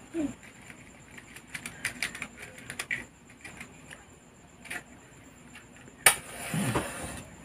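Matchbox handled with a run of small clicks and rattles, then a match struck about six seconds in: one sharp scrape and a brief flaring rush as it lights.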